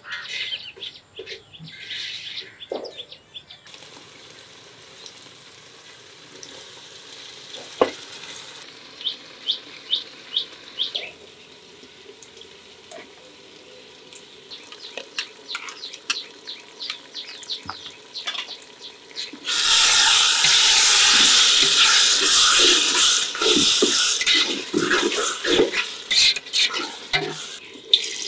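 Cooking at a steel pot: scattered clicks of a spoon against the pot, then, about two-thirds of the way in, a loud, steady sizzling splash as water is poured from a brass pot into the hot, steaming pot.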